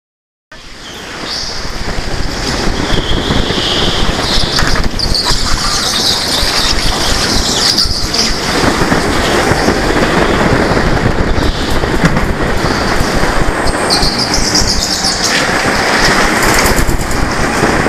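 Go-karts running on an indoor track: a loud, continuous motor noise with high tyre squeals that come and go as the karts corner. The sound fades in about half a second in.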